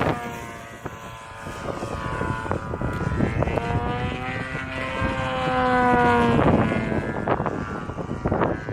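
DA70 twin-cylinder petrol engine of a large 3D aerobatic RC plane running in flight, its propeller note shifting in pitch as the throttle changes. The note grows louder toward the middle and drops away about six and a half seconds in.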